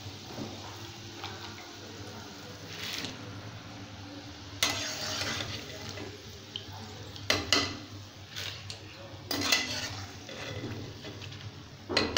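Slotted metal ladle scraping and clanking against a metal kadai while scooping fried peanuts out of hot oil, over a low sizzle from the oil. Four or five sharp clanks stand out, spread through the whole stretch.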